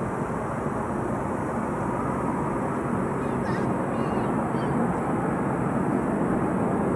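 Unexplained sound from the sky: a steady, low rushing noise that slowly grows louder, with a few faint high chirps around the middle.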